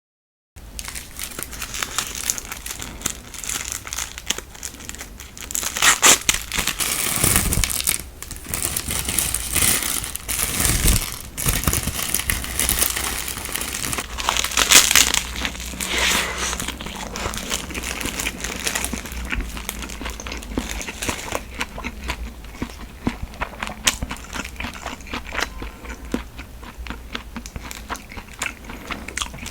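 Plastic convenience-store food packaging crinkling and tearing as it is handled and unwrapped, a dense run of small crackles with louder rustles every few seconds.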